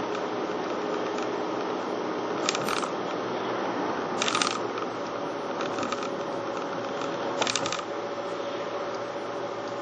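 Steady road and engine noise of a moving car heard from inside, broken four times by a brief clattering rattle of small loose items or the camera mount, roughly every one and a half to two seconds.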